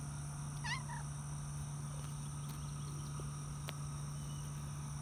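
Steady outdoor chorus of insects, with one short chirping call less than a second in.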